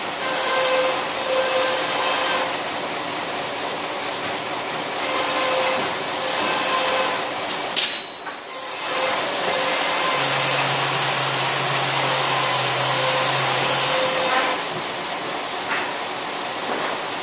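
Motor-driven wood-processing machine with a large spinning disc running steadily with a humming drone. Several stretches of louder noisy rushing are heard as logs are worked through it. There is a single sharp knock about eight seconds in.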